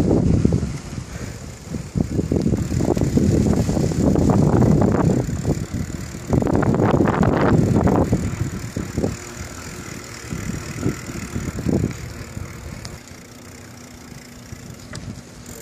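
Wind gusting on the microphone during a bicycle ride along a concrete path, heard as an uneven rumble that comes and goes in surges. It eases to a quieter, steadier noise for the last few seconds.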